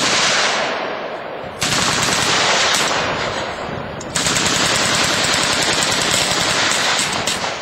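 .30-caliber machine gun firing long, sustained bursts. One burst dies away early, a new one starts abruptly about a second and a half in, and another about four seconds in, running until near the end.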